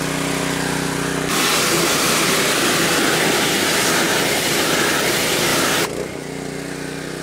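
A small engine runs steadily. About a second in, a loud, even hiss of spraying water starts over it, lasts about four and a half seconds and stops suddenly, as the cleaned wheel is rinsed.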